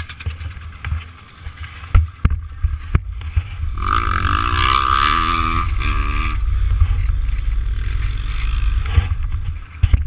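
A few knocks and bumps as the helmet camera is handled and set down. Then a steady low rumble, with an engine revving up and down for a couple of seconds near the middle.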